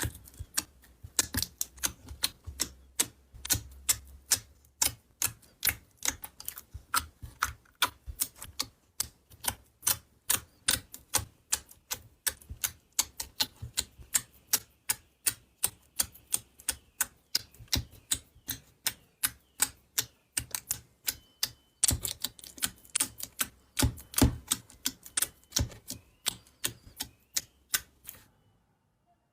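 Slime being pressed and worked by hand, making a steady run of sharp clicking pops, about three to four a second, that stops abruptly near the end.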